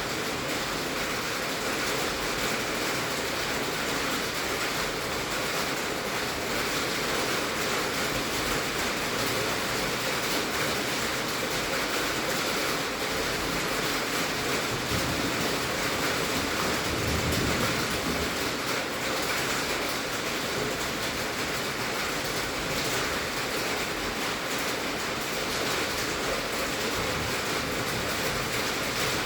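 Heavy rain falling on a tin roof: a steady, dense hiss that swells slightly about halfway through.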